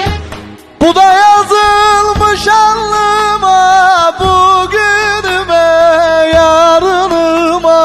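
Instrumental break of a Turkish folk-style song: a loud lead melody of held, ornamented notes over a beat with low drum hits. The lead enters sharply about a second in, after a short rising slide.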